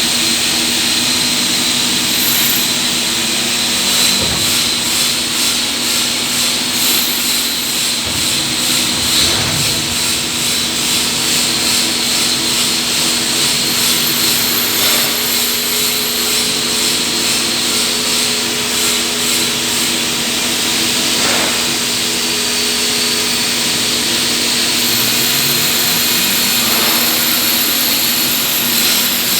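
CNC lathe running steadily while turning a pulley: a constant machine hum with a high, steady whine over a hiss.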